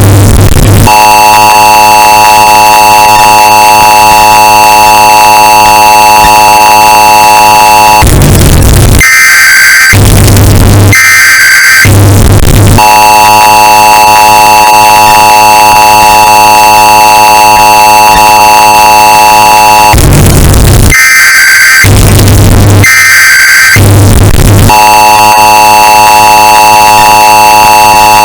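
US Emergency Alert System signal, bass boosted and heavily distorted. The harsh two-tone attention signal holds for about seven seconds at a time. It is broken twice by screeching bursts of SAME data headers before the tone starts again.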